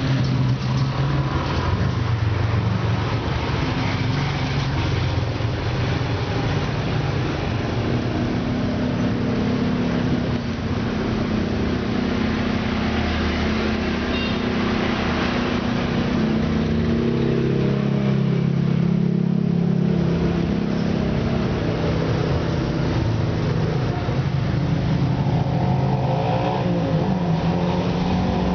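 Motor-vehicle engines running steadily, their pitch shifting up and down at times, over a continuous traffic-like rumble.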